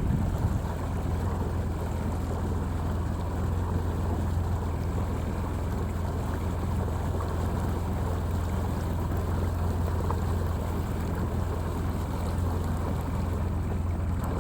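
Boat engine running at a steady speed, a constant low hum, with rushing water and wind noise over it.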